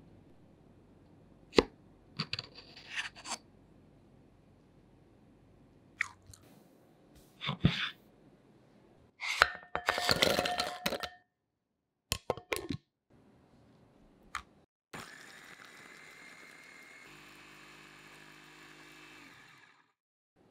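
Food-preparation handling sounds: a string of sharp clicks, scrapes and short crunchy rustles, then a steady noise for about five seconds that stops near the end.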